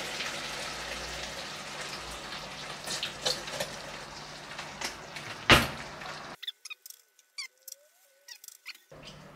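Cooking cream poured from a carton into a hot frying pan of chicken and onions: a soft, steady hiss of pouring liquid and the pan cooking, with a sharp knock about five and a half seconds in. After about six seconds the sound drops to near silence with a few faint clicks.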